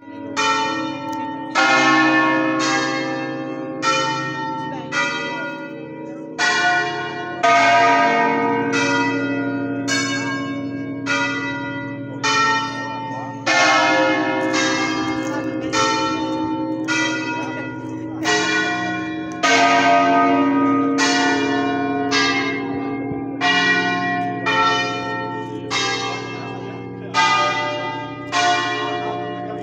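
Ring of nine church bells tuned to B-flat, rung full circle in the Veronese manner, sounding one after another at about one strike a second. Each stroke rings on and overlaps the next.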